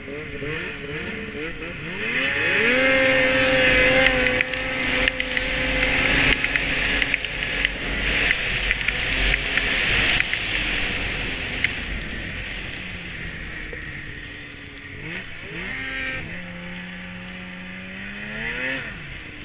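2006 Polaris RMK 600HO snowmobile's two-stroke twin engine climbing in pitch about two seconds in and holding a steady high pitch under throttle, with a loud rush of track and snow noise. Past the middle it eases off, runs lower, and revs up briefly near the end.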